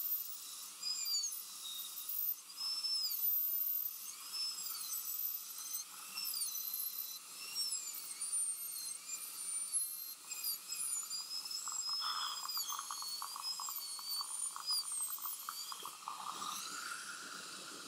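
High-speed dental handpiece with a bur cutting a shoulder into a front tooth for a crown. Its high whine dips and rises again and again as the bur is loaded and eased off the tooth. From about two-thirds of the way in there is a rapid crackle for a few seconds.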